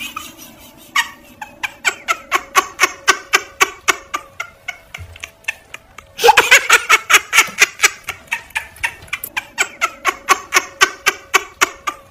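A person laughing hard in rapid, breathy bursts, several a second, getting louder about six seconds in.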